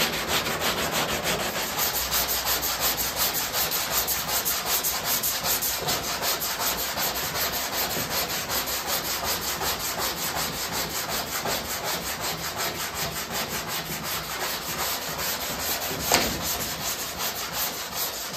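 Long hand sanding block with 180-grit paper rasping over body filler on a car's steel quarter panel, in quick, even back-and-forth strokes that level off the filled weld seam. A single sharp knock about sixteen seconds in.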